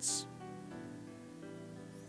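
Soft background instrumental music: quiet held chords that change every half second or so.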